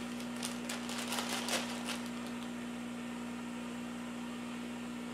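Plastic zip-top bag crinkling and rustling as it is handled for the first two seconds, over a steady low hum.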